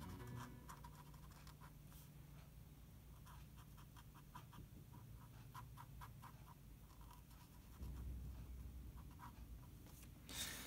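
Faint scratchy strokes of a Faber-Castell PITT artist pen's brush tip on paper, many short strokes in an irregular rhythm as dark areas are inked in. The strokes stop shortly before the end.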